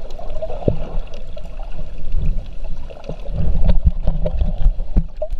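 Underwater sound picked up by an action camera in its waterproof housing: a muffled, uneven rumble of water moving against the housing, swelling now and then, with a few sharp clicks.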